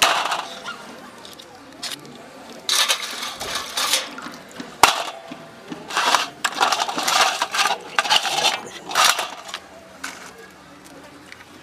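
Cooked crabs being broken apart by hand: shells cracking and crunching, with pieces clattering onto a steel plate. The sound comes in several bursts, with one sharp click near the middle.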